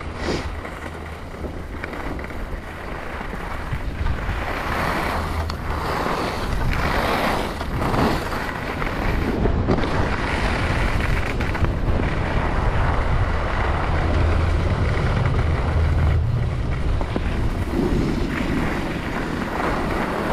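Wind buffeting the microphone of a skier's head- or body-mounted camera during a downhill run, a steady low rumble, with the hiss of the skis on groomed snow swelling and fading every couple of seconds through the turns.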